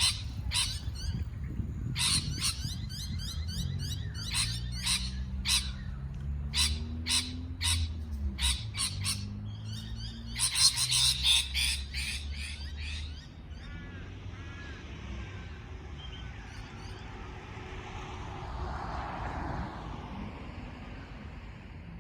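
Parrot chirping in a rapid series of short, sharp calls, about three or four a second, then a dense flurry of squawky calls about ten seconds in. The calls stop after about thirteen seconds, leaving only faint sounds. A low hum runs underneath through the middle.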